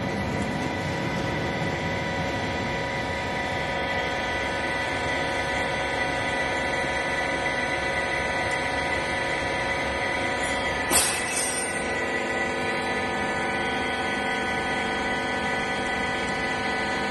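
Wiper baler machine running: a steady mechanical hum with several steady whining tones, and one sharp click with a short hiss about eleven seconds in.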